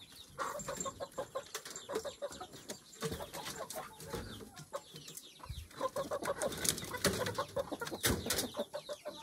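Chickens clucking in short, irregular calls, with a few scattered light knocks.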